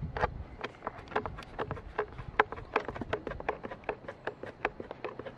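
Sealed metal ZU-23 ammunition tin being cut open around its rim with a hand opener: a quick run of short, sharp metallic clicks, about five a second, as the opener bites along the edge of the lid.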